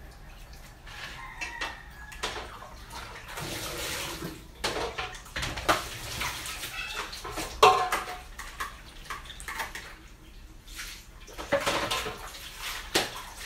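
Hands splashing and sloshing water in plastic basins while washing freshly caught field fish, with scattered sharp knocks of the plastic basins and scoop; the loudest knock comes about eight seconds in.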